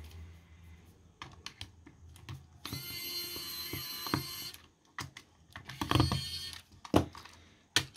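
Small electric screwdriver whirring for about two seconds as it backs a Phillips screw out of the plastic back of an IKEA VINDRIKTNING air-quality sensor, with light clicks and taps of the bit and plastic case around it and a shorter, louder burst about six seconds in.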